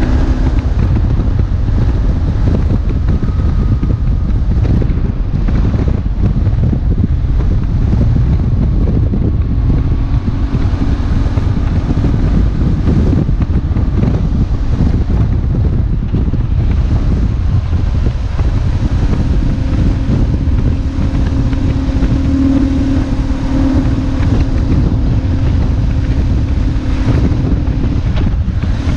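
Heavy wind buffeting on the microphone of a riding BMW R1150GS motorcycle, with the air-cooled boxer twin's engine note running underneath. The engine note comes through more strongly in the last third.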